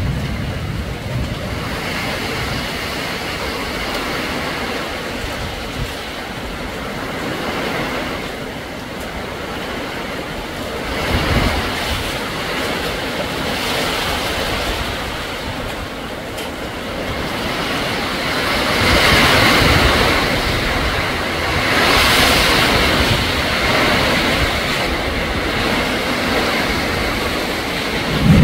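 Strong storm wind gusting through leafy trees: a steady rush of wind and thrashing leaves that swells in stronger gusts about a third of the way in and again through the second half. Wind buffets the microphone with low rumbles at the start and near the end.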